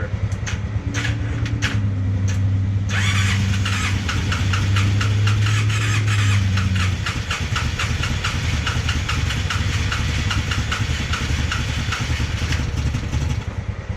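Polaris Sportsman 600 twin-cylinder engine running rough on almost no compression, with the throttle opened. Its note rises over the first couple of seconds and drops back after about seven seconds. From about three seconds in, a rapid ticking rattle rides over the run and stops shortly before the end.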